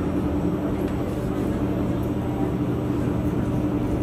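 Steady running noise inside a moving Singapore MRT train carriage: wheels on rail and running gear with a steady low hum, at an even speed.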